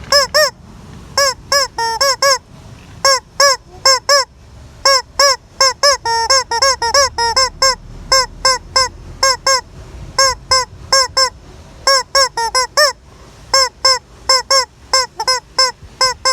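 Squeaky rubber chicken toy squawking over and over: short squeals in quick bunches of two to four, each rising then falling in pitch.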